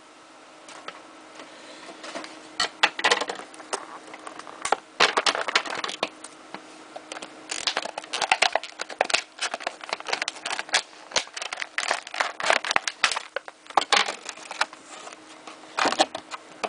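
Packaging of a baseball card repack box being torn open and handled: irregular crinkling, tearing and crackling with many sharp clicks.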